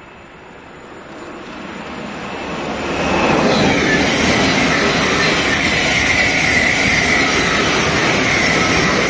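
Thameslink Class 700 electric multiple unit passing along the platform at speed. The rush of wheels on rail and air builds from about a second in to a loud, steady roar by about three seconds, with a high steady whine over it.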